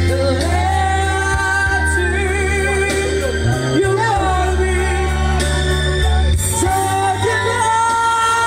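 Singing over backing music: a voice holding long notes with vibrato above steady bass notes that change every few seconds.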